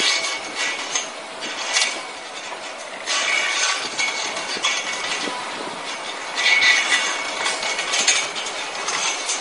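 Close-up rustling and scraping from hands pulling and knotting plastic (polyester) wire around a metal pole, with a few small clicks, in uneven louder stretches.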